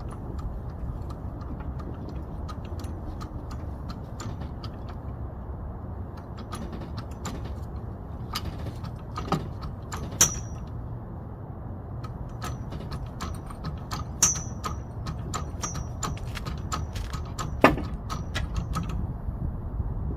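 Hand tools and loose metal parts clinking and clattering irregularly during work to take a car's front wheel off, with a few sharper metallic clanks, over a steady low hum.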